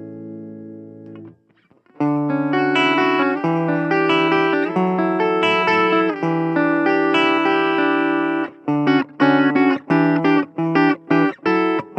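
Suhr Classic Pro electric guitar played clean through a Blackstar Fly 3 mini amp. A ringing chord is muted about a second in, and after a short pause come sustained notes and chords, changing near the end to short, choppy chords about three a second.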